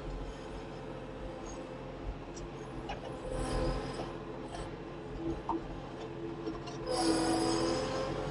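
Compact tractor engine running steadily while the front loader lifts a load of logs in the grapple, with a steady whining tone that grows louder about seven seconds in.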